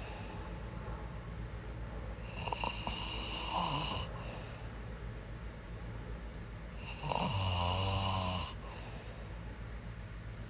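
A person snoring: two long snores, one about two and a half seconds in and another about seven seconds in, each lasting around a second and a half, with quieter breathing between them.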